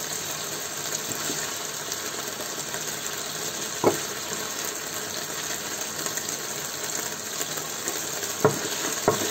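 Browned pork and rabbit pieces sizzling steadily in hot oil in a frying pan. A few short wooden knocks come as wooden spatulas lift the meat out onto a plate, around the middle and twice near the end.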